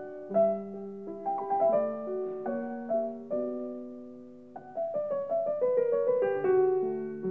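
Piano music: single melody notes that ring and fade over lower accompanying notes, thinning out about four seconds in before the playing picks up again.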